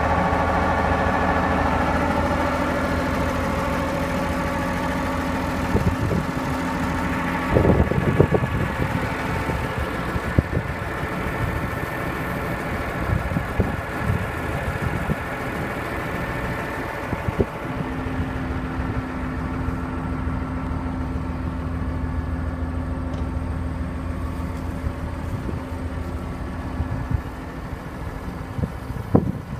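John Deere 544 wheel loader's diesel engine idling steadily, with a few short knocks, the loudest cluster about a quarter of the way in.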